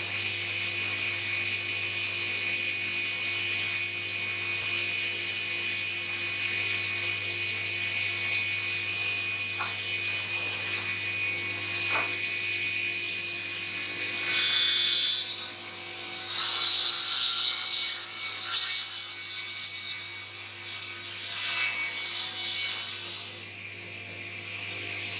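Woodworking planing machine running steadily with a constant motor and cutterhead hum, while a grey gum board is fed through it. From about halfway in, for roughly nine seconds, there is louder uneven cutting noise as the knives take shavings off the board's face.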